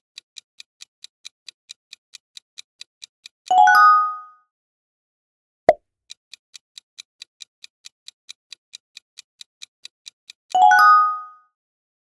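Quiz countdown-timer sound effect: a clock ticking about five times a second, broken twice by a bright chime as the answer is revealed, once about a third of the way in and again near the end. A single short pop comes about halfway, as the next question appears.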